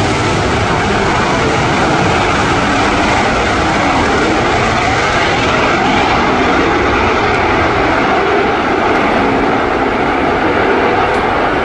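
Twin RD-33 turbofan engines of a MiG-29 fighter at full afterburner on its takeoff roll: loud, steady jet noise.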